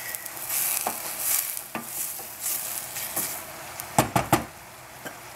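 Shredded cabbage sizzling as it is stir-fried in a stainless steel saucepan, a wooden spoon scraping and clacking against the pan. About four seconds in, a quick run of three or four sharp knocks, then only the sizzle.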